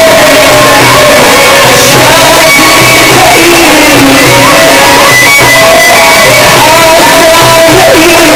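A male Sufi munshid chanting religious inshad, loud and amplified, with long held, ornamented notes over instrumental accompaniment and a steady low beat.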